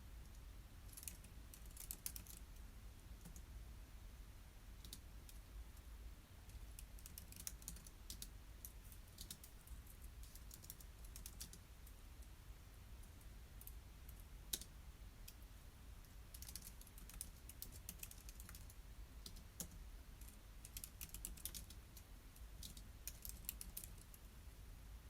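Typing on a computer keyboard, soft key clicks coming in several short bursts with pauses between them.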